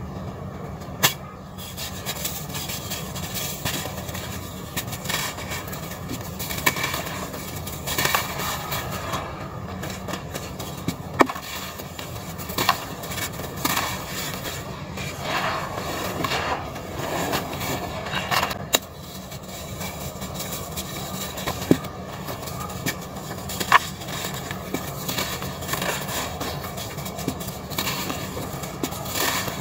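Dry red dirt being scooped, squeezed and crumbled by hand and falling back into a plastic basin: a steady gritty rustle of pouring grains, with a few sharp snaps along the way.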